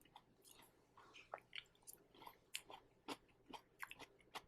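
Faint chewing: a person chewing a mouthful of food, with soft, irregular wet mouth clicks and smacks.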